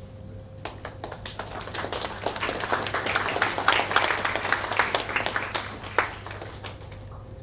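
A group of people applauding, starting about a second in, building to a peak midway and dying away near the end.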